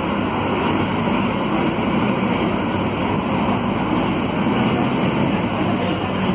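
Cabin sound of a Volvo B9SALF low-floor city bus under way: its Volvo D9A diesel engine running steadily, mixed with road noise.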